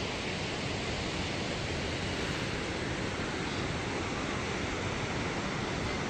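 Wind blowing over the microphone: a steady rushing hiss with low, uneven buffeting.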